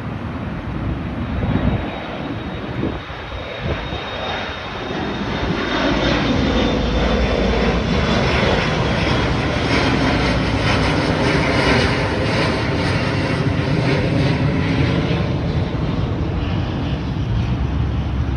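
Airplane flying past, its engine noise swelling about five seconds in and staying loud, with a thin high whine slowly falling in pitch.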